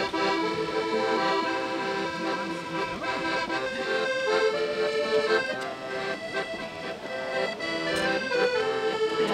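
Instrumental music: a melody of held notes over sustained chords, changing pitch in steps.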